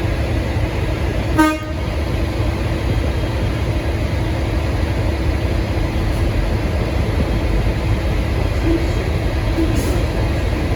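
V/Line N class diesel locomotive running with a steady low rumble, with one short toot of its low-note horn about a second and a half in.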